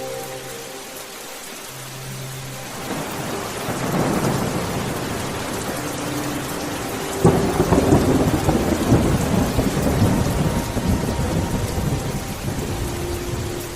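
Steady rain with a thunderstorm: a sudden thunderclap about seven seconds in, followed by several seconds of rolling rumble that fades under the rain.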